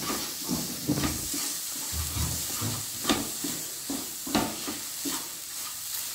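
A spatula stirring and scraping a crumbly mawa and ground dry-fruit mixture around a non-stick pan on a gas flame, one or two strokes a second. Under the strokes there is a steady faint sizzle from the mixture roasting in the hot pan.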